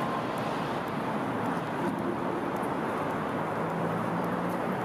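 Steady noise of distant road traffic, with a faint low hum running under it.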